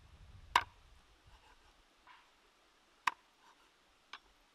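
Knife chopping through raw chicken onto a wooden chopping board: sharp knocks, loud ones about half a second and three seconds in, a lighter one near the end, with faint ticks between.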